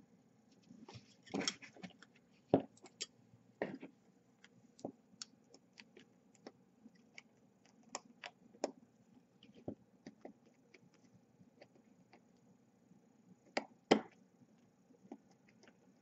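Irregular small clicks and taps from handling the parts of a brushless drone motor and a small screwdriver, with sharper knocks about two and a half seconds in and twice near the end.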